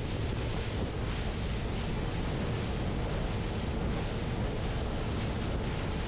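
Steady rush of wind on the microphone mixed with water noise from a motorboat under way.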